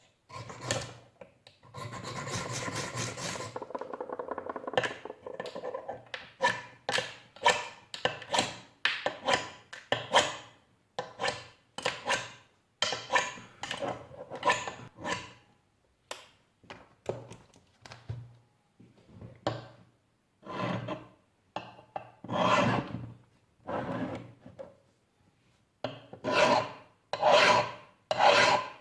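A steel hand file rasping across the spine of a Hultafors axe head, dressing it to a sharp edge that will scrape sparks from a ferro rod. The file goes in repeated strokes, about one or two a second, with a quick run of short strokes in the first few seconds.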